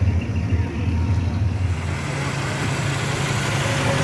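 A car engine running steadily, its low note stepping up in pitch about halfway through.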